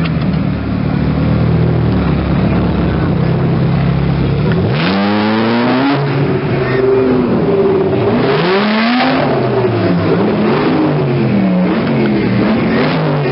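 Ferrari 458 Speciale's V8 running at low revs as it crawls past, then revving hard about five seconds in and accelerating away, the pitch climbing and dropping with each upshift.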